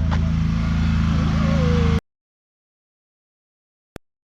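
A vehicle engine idling steadily, which cuts off abruptly about halfway through into dead silence, broken only by a single click near the end.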